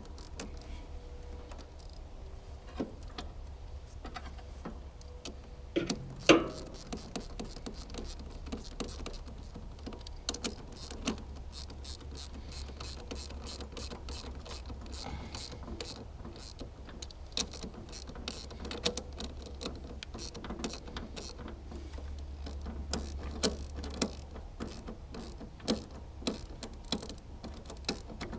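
Hand tools working on the tractor's battery cable terminals: a long run of small metallic clicks, ratchet-like, with one louder clank about six seconds in.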